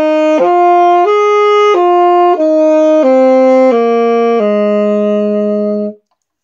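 Saxophone playing the last part of an F major pentatonic run, one clear note at a time: up through D to the top F, then back down D, C, A, G to a long held low F that stops about six seconds in.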